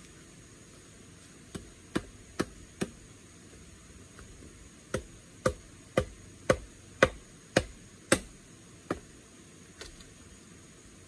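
A bamboo post being struck with a thick piece of bamboo used as a mallet: sharp knocks, four in quick succession, a pause, then about nine more at roughly two a second, the last couple weaker.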